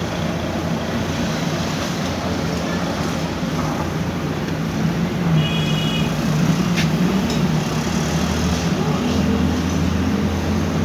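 Canon imageRUNNER 1133 copier running, a steady mechanical hum of its motor and gear drive, whose gear noise is the fault being worked on. A short beep comes about halfway, and a sharp click follows a second later.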